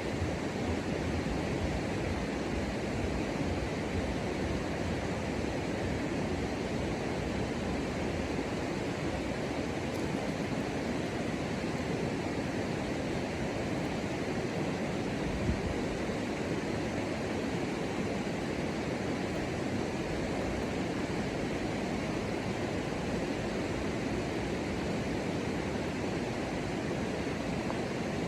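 Steady rushing noise with no distinct calls, and one brief thump about fifteen seconds in.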